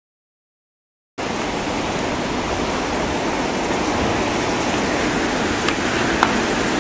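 Tsunami seawater rushing and churning through a fishing harbour, a steady loud wash of noise that starts suddenly about a second in.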